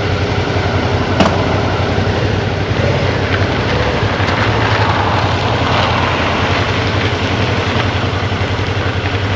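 Suzuki V-Strom 650's V-twin engine running at low revs as the motorcycle rolls off slowly across gravel, heard from the rider's seat. There is one sharp click about a second in.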